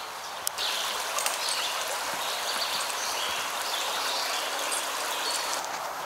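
Small woodland stream running: a steady rush of water that starts abruptly about half a second in and stops just before the end.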